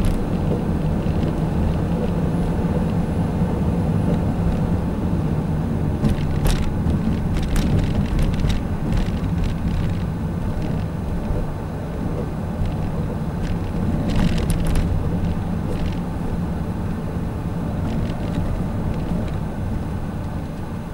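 Car being driven, heard from inside: a steady low rumble of engine and road noise, with a few brief clicks in the middle.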